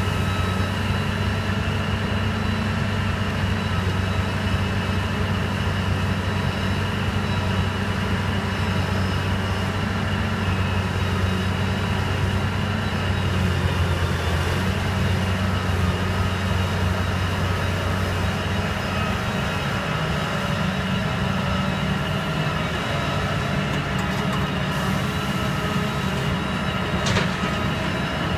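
Heavy diesel engines of a Liebherr 984 hydraulic shovel excavator and a Terex TR100 dump truck running steadily through a dig-and-swing cycle, with steady high-pitched hydraulic whining over the low engine drone. A short clank near the end.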